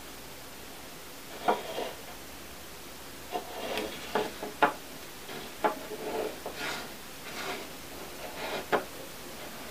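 A hand and a budgerigar on a wooden tabletop: irregular knocks, taps and scraping rubs on the wood, coming in a few short clusters, the sharpest about one and a half seconds in, around the middle and near the end.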